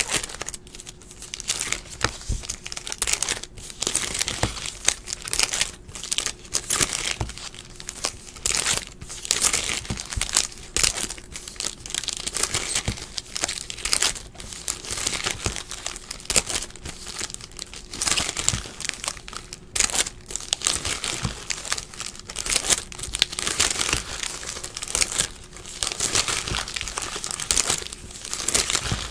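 Foil wrappers of 2016 Platinum baseball card packs being torn open and crinkled by hand: a continuous, irregular crackling and rustling of stiff foil.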